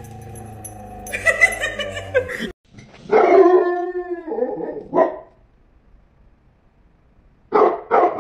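Small white dog barking: one long drawn-out bark, then a short bark, then a quick run of four barks near the end. The voice is bigger than the small dog looks.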